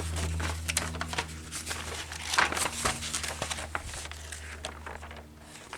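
Paper and a plastic bag rustling and crinkling as the paperwork is handled, with scattered small clicks over a steady low hum.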